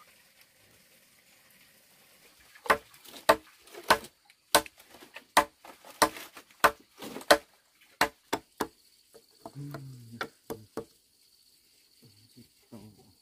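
Machete chopping into a peeled wooden log: about a dozen sharp strikes at an uneven pace, starting a few seconds in and stopping about two seconds before the end. A thin, steady insect drone comes in partway through.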